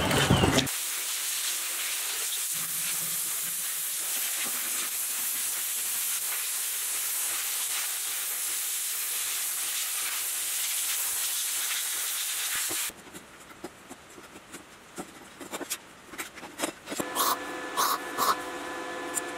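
Abrasive sandblasting of a diesel engine part: a steady, even hiss of the blast hose, stripping the old red paint. After about 13 seconds it cuts off, and stick (arc) welding follows, the arc crackling in short spurts that grow louder near the end. A brief loud sound at the very start cuts off within the first second.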